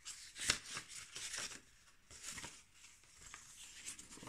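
Paper and card rustling as a handmade art journal's pages and tucked-in paper pieces are handled: a string of short crinkly rustles, the loudest about half a second in.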